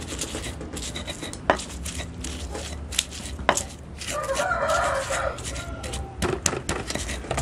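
Stone pestle (ulekan) pounding and grinding chilies, shallots, garlic, salt and sugar in a stone mortar (cobek): irregular sharp knocks of stone on stone, a few seconds apart. About four seconds in, a rough scratchy sound lasts about a second, over a steady low hum.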